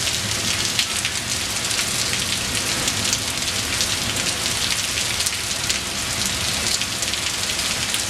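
Heavy rain pouring down in a steady downpour, a dense hiss with many fine spattering drop hits.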